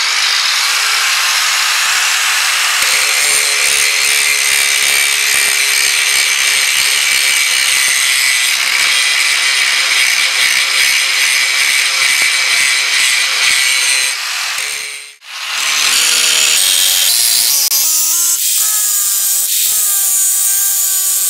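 Angle grinder grinding the steel of an old rusty axe head held in a vise: a continuous hissing grind of disc on metal. It breaks off briefly about fifteen seconds in and resumes, the motor's whine then wavering in pitch as the disc is pressed against the steel.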